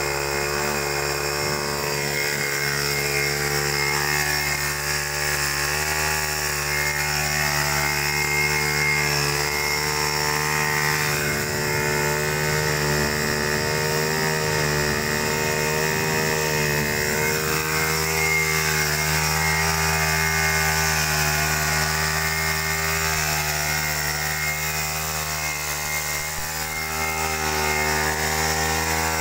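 Small grass-cutter engine, converted to drive a water pump, running steadily at speed, its pitch wavering slightly as it turns the pump impeller.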